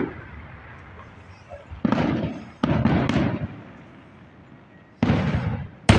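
Four sudden loud bangs, each dying away over about half a second. Two come close together around two seconds in, and two more come near the end.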